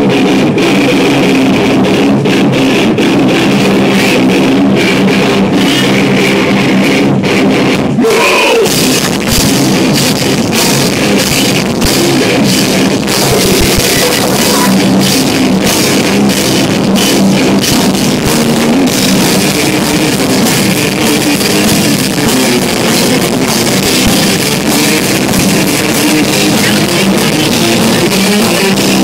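Live rock band playing loud, with electric guitars and a drum kit pounding out a steady beat; a short falling pitch slide comes about eight seconds in.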